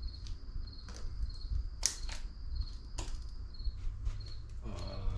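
A few sharp clicks and knocks as the stock intake parts of an Audi RS3 engine bay are unfastened and handled by hand, over a high, even chirping that repeats about twice a second.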